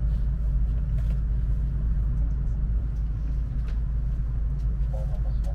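Steady low rumble inside a Shinkansen N700S passenger car, with a few faint clicks.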